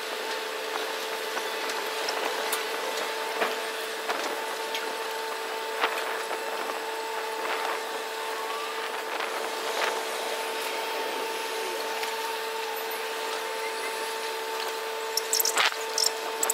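Steady machinery hum with a constant whine from a docked ferry and its berth equipment, with scattered light clicks and several sharper knocks near the end.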